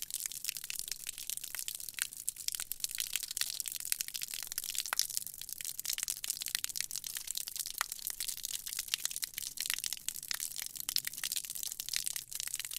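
Shower water streaming onto a hard floor: a steady, high splashing hiss dense with small sharp spatters.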